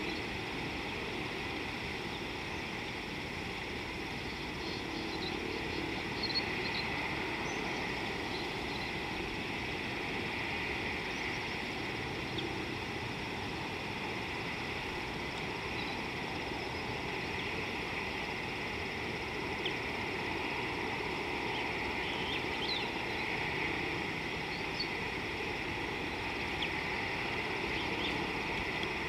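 Steady outdoor ambience: an even hum and hiss, with a few faint, brief bird chirps now and then.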